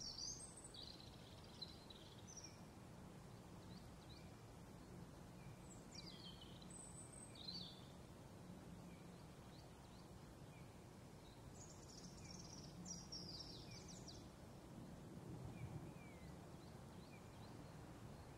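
Songbirds chirping in a few short bursts, at the start, around the middle and again later, over a faint steady outdoor background hum.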